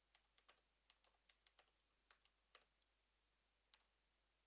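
Faint computer keyboard typing: quick irregular runs of keystrokes, then a pause of about a second and a single last keystroke near the end.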